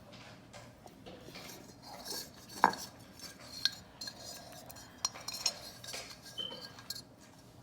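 Scattered light clicks and clinks of small metal parts being handled against a ceramic lamp base during wiring of its light fitting. The sharpest click comes about two and a half seconds in, with a few more later.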